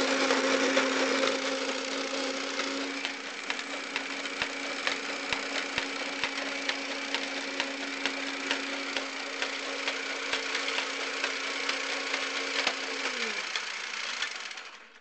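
Air Zone Punisher toy minigun's battery motor running, spinning the barrel and advancing the belt with a steady hum and a stream of sharp mechanical clicks. The motor winds down with a falling pitch about 13 seconds in, once the trigger is let go.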